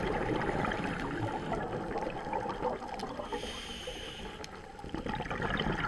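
Underwater sound heard through a dive camera's housing: a steady muffled wash with faint crackling. A scuba regulator hisses on an inhale about three seconds in, and exhaled bubbles gurgle near the end.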